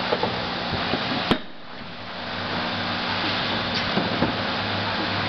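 Hinge packaging machine running with a steady mechanical hum and hiss. About a second in comes a sharp click, after which the hiss drops and builds back up over about a second. A few lighter ticks follow later.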